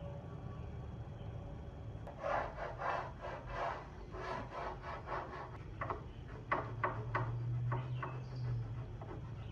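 Hand scrubbing and wiping strokes on a paint-stripped wooden dresser drawer, several quick rubs a second that turn shorter and sharper near the end.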